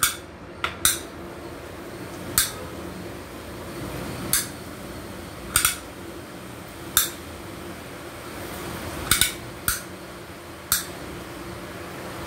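Murukku dough sizzling steadily as it is pressed in strands into hot frying oil in a metal kadai. About nine short, sharp metallic clicks from the murukku press come irregularly, one to two seconds apart.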